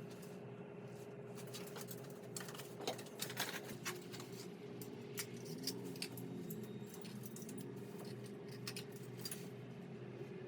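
Light, irregular clicking and rattling of small hard objects over a steady hum, busiest in the middle.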